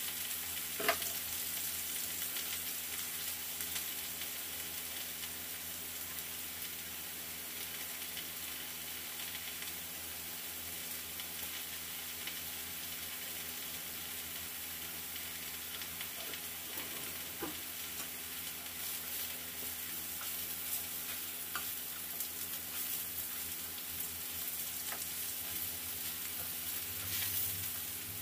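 Donggeurangttaeng (Korean pan-fried patties) sizzling steadily in oil in a frying pan, with a few light clicks, the sharpest about a second in.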